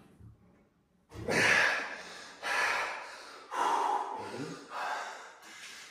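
Four forceful, breathy exhales about a second apart from a man straining through reps on a chest fly machine.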